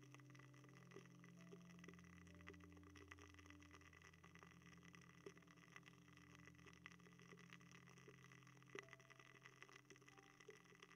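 Faint crackling with scattered soft ticks, heard close to the microphone: an ear candle burning in the ear during an ASMR ear-candling treatment. One tick about nine seconds in is a little louder.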